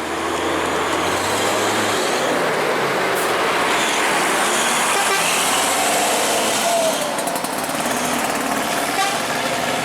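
Heavy vehicle driving past close by: steady engine and road noise, with a low engine hum that fades about two seconds in.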